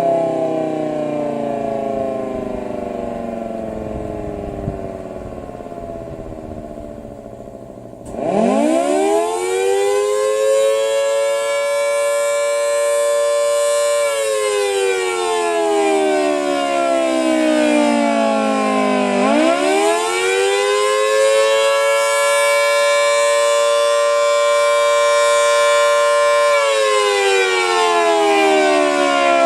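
Federal Signal Model 2T dual-tone electromechanical tornado siren cycling a wailing attack signal. It winds down, spins back up sharply about eight seconds in to a steady two-note chord, and holds for about six seconds. It then slides down, spins up again about nineteen seconds in, holds, and starts winding down again near the end.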